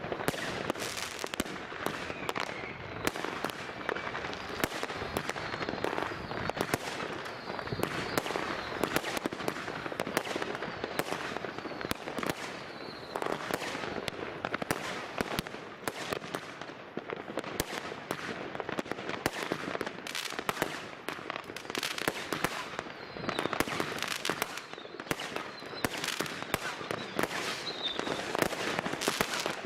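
Dense, continuous New Year's fireworks: many firecrackers and rocket bursts cracking and banging in quick, overlapping succession, with a few faint whistles rising among them.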